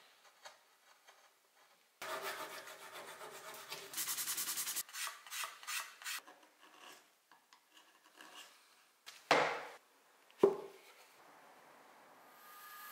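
Hand tools shaving and scraping hardwood, a small plane and a curved card scraper, in quick repeated scraping strokes. Two loud knocks follow about a second apart, and a steady machine hum comes in near the end.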